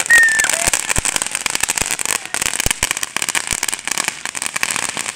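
Consumer fireworks crackling: a dense, continuous stream of sharp pops and snaps over a loud hiss.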